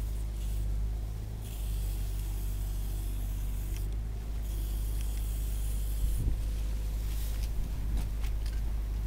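Aerosol spray-paint cans hissing in long bursts of a couple of seconds each as paint goes onto a wall, over a steady low rumble. A few sharp clicks and taps come in the last few seconds.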